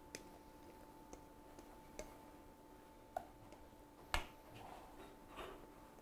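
Sparse light clicks and taps of a utensil against dishware as potato purée is served out, the sharpest clack a little after four seconds in, over a faint steady hum.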